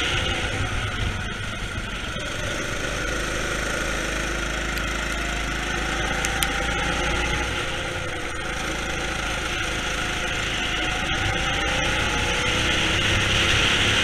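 Go-kart engine heard from on board the kart while lapping, over a steady rushing noise; the engine note rises twice as the kart accelerates out of corners and grows louder near the end on the straight.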